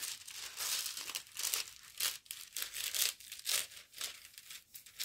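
Clear plastic protective film on a diamond-painting canvas crinkling as hands smooth and press it back down over the canvas, in a run of irregular rustles and swishes.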